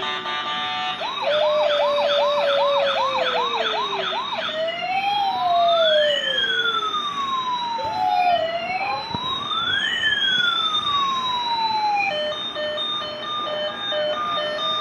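Toy police car's electronic siren sound running through its patterns: a fast repeating whoop for a few seconds, then a slow rising-and-falling wail, then a pulsed beeping in steady tones near the end.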